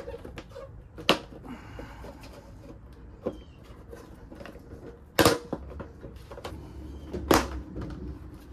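Plastic retaining clips of a Toyota Tacoma rear bumper's trim piece popping loose as the trim is pulled up by hand. There are sharp snaps about a second in, around five seconds in (the loudest) and near seven and a half seconds, with a fainter click between.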